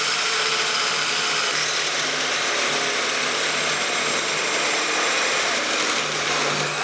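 Corded electric drill running steadily as it cuts into the steel tubing of a motorcycle frame, with a constant motor hum under the cutting noise.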